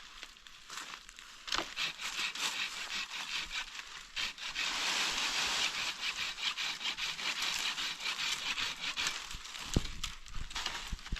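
Dry wood scraping and crackling, with many scattered clicks; it grows louder and denser from about four seconds in until about nine seconds, then eases.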